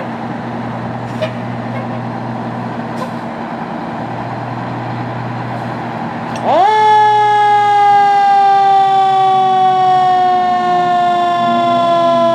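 1992 American LaFrance fire engine's engine running in the station bay, then its siren winds up sharply about six seconds in and slowly falls in pitch as it coasts down.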